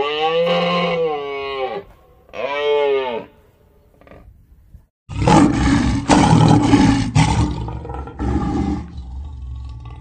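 A cow mooing twice, a long moo and then a shorter one. About five seconds in, a lion roars in a run of rough, loud pulses that tail off near the end.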